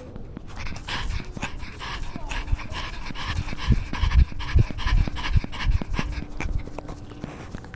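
A cat panting in quick, even breaths, picked up right at the camera worn on its body, with heavy dull thumps from its movement between about three and six seconds in.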